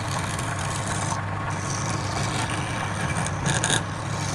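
Wood lathe running with a steady motor hum while a turning tool scrapes the spinning wood. A brief higher-pitched squeal comes about three and a half seconds in.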